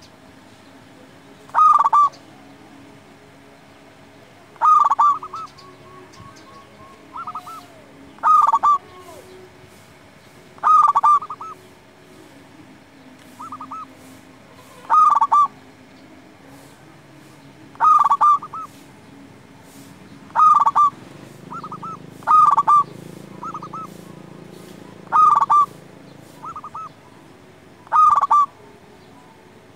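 Zebra dove (perkutut) cooing: short bursts of quick, rolling notes repeated about every two to three seconds, some followed by a few fainter notes.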